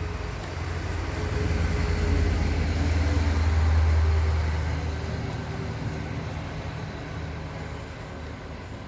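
Low rumble of a heavy vehicle passing by, swelling to a peak about four seconds in and then fading away.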